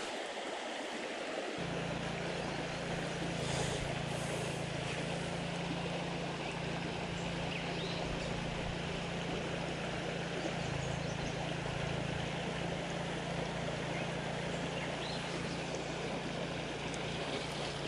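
Shallow creek running over rocky riffles, a steady rush of water. A low steady hum joins in about a second and a half in.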